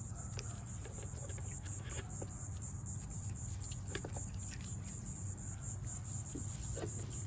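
Insects trilling steadily in a high, rapidly pulsing chorus over a steady low hum, with a few faint clicks.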